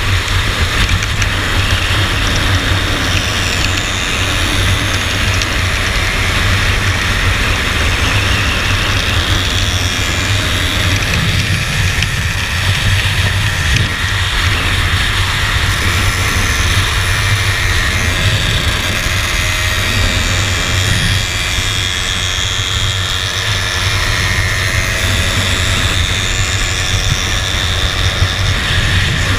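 Wind buffeting the microphone on a moving classic two-stroke Vespa scooter at cruising speed, with the scooter's engine running steadily underneath the wind.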